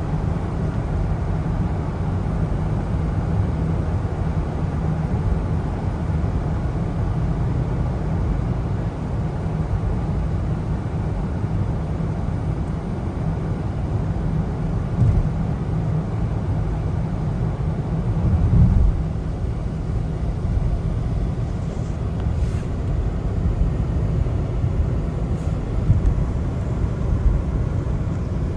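Steady road noise of a car driving on wet roads in the rain: tyres hissing on wet pavement over a low rumble, with a brief swell about two-thirds of the way through.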